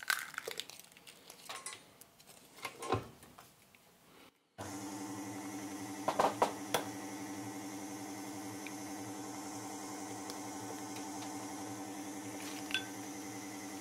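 A few faint taps and knocks at the mixing bowl, then, from a little over four seconds in, an electric stand mixer's motor running steadily as its flat beater mixes eggs into creamed lard and sugar, with a few knocks against the bowl soon after it starts.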